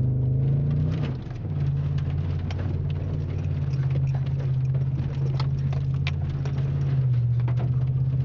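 Chevy Silverado's engine pulling under throttle, heard from inside the cab, its pitch rising then dropping off briefly about a second in before holding steady. Mud and water patter and tick against the windshield and body throughout.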